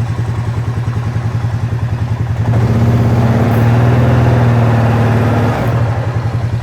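2006 Honda Rubicon ATV's single-cylinder engine idling cold with the ticking of its rocker arms, a noise all these Hondas make when cold and that mellows out as they warm up. About two and a half seconds in the engine runs louder for roughly three seconds, then drops back to its idle.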